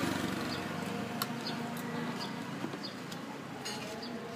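Light clicks and taps of a hand-held metal citrus squeezer and plastic cups as limes are pressed, over a steady low background hum, with short high chirps recurring every half second or so.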